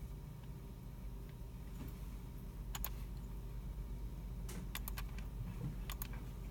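Scattered clicks of computer keyboard keys and mice, in a few small clusters, over a steady low hum of the computer room.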